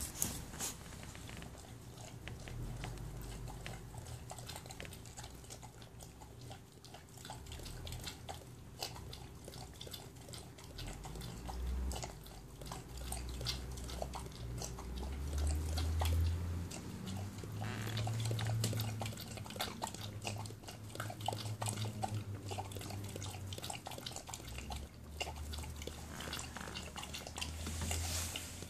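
Dog lapping water from a stainless steel saucepan: a long run of quick, irregular wet laps.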